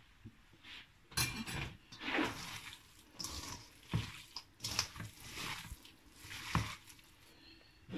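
Hands squeezing and mixing raw minced chicken with chopped onion, spices and oil in a stainless steel bowl: wet squishing in irregular bursts about once a second.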